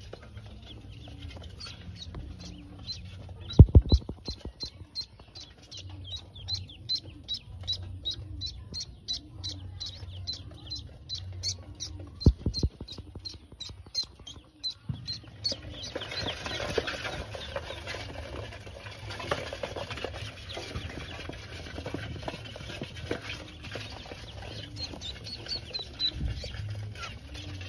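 Pekin ducklings peeping: an even run of short, high peeps, about two or three a second, through the first half. A loud knock comes about four seconds in, another at about twelve seconds, and then a steady rustling noise takes over.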